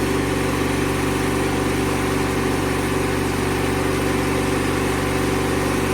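1997 MTD Yard Machines riding lawnmower engine running steadily at full throttle, just after a cold start.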